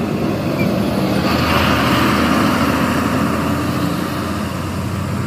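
Fuel tanker truck driving past, its engine running steadily under tyre noise that swells about halfway through as it goes by.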